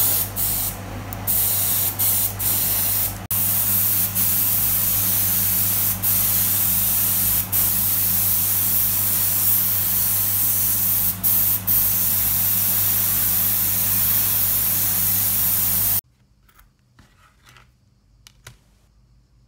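Airbrush spraying paint in a steady hiss over a constant low hum, the hiss dipping briefly several times. It cuts off abruptly about sixteen seconds in, leaving only a few faint small clicks.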